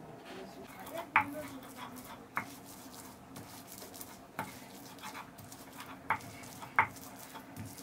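Spices and garlic being ground by hand on a flat stone grinding slab: a steady rubbing scrape broken by several sharp knocks, roughly one a second.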